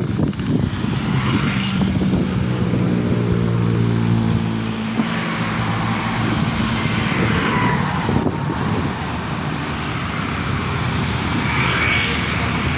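Road traffic passing close by: motor scooters and a small truck, with an engine's steady hum standing out in the first few seconds.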